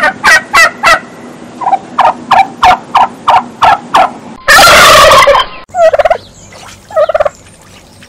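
Domestic turkeys calling: a run of short repeated calls about three a second, a loud harsh burst about halfway through, then a few rattling gobbles near the end.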